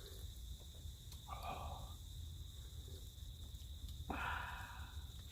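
A steady high insect drone, typical of crickets, over a low outdoor rumble, with two short breathy sounds, one about a second in and one near the end.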